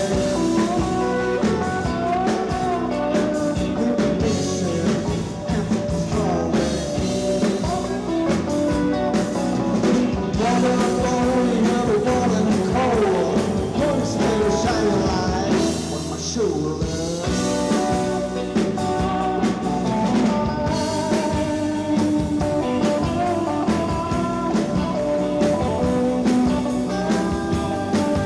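A live rock band playing, with electric guitars over bass and drums. Guitar notes bend up and down in pitch in the middle stretch.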